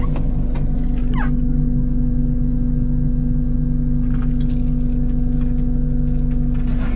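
Kubota KX080 excavator's diesel engine idling steadily just after starting, heard from inside the cab. A few light clicks come and go over it.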